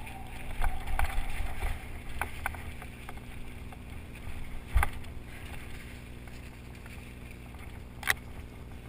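Mountain bike riding over a wooded trail: a steady low rumble of wind and movement on the camera's microphone, broken by sharp knocks and rattles from the bike over bumps, several in the first two seconds, the loudest about five seconds in, and another near the end.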